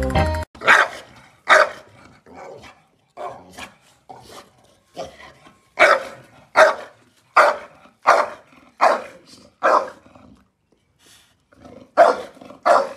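A bully-breed dog barking repeatedly, single sharp barks roughly one a second with quieter sounds between them; a short pause near ten seconds, then two more barks near the end.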